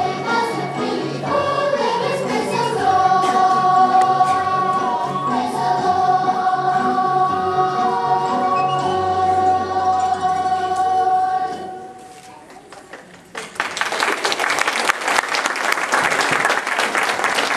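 A group of children singing a song over an instrumental accompaniment with a pulsing bass, ending on a long held note about twelve seconds in. After a short pause the audience applauds.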